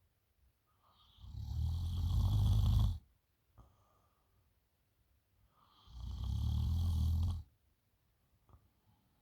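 A woman snoring in deep, drunken sleep: two long snores, each building up and then cutting off abruptly, about four and a half seconds apart, with a low fluttering rattle and a hiss, and quiet gaps between.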